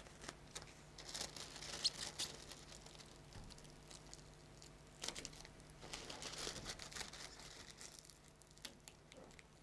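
Faint crinkling and rustling of thin plastic release film as gloved hands stretch it and press it down over a wet epoxy laminate patch, in two spells of soft rustles and small ticks, about a second in and again around the middle.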